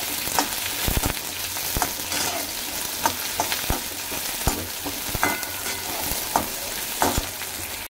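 Sliced onions sizzling in hot oil in a kadhai, being fried until lightly browned, while a metal slotted spatula stirs them, scraping and clicking against the pan about once a second. The sound drops out abruptly just before the end.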